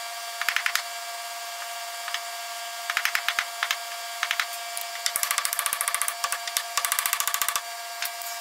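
Claw hammer tapping a .50-calibre lead ball down into a hole in a wooden crankbait body, seating it almost flush. It is heard as short groups of sharp taps, then a fast run of taps, about ten a second, from about five seconds in.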